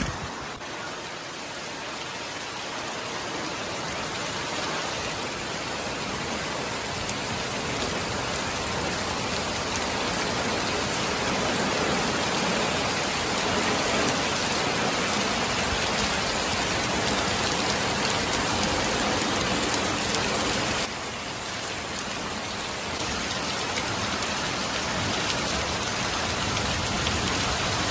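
Heavy rain falling steadily, a dense even hiss of drops hitting surfaces, briefly a little quieter about three-quarters of the way through.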